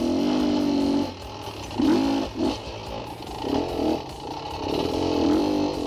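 2017 Beta 250 RR two-stroke dirt bike engine revving on and off at low speed. It is held up briefly at the start, then blipped three more times, the pitch rising and falling with each burst of throttle.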